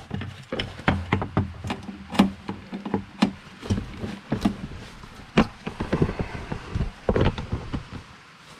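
Irregular sharp clicks and knocks, about one or two a second, from a hand pop-rivet gun and metal parts being worked on a snowmobile tunnel while a hood-strap rivet is set.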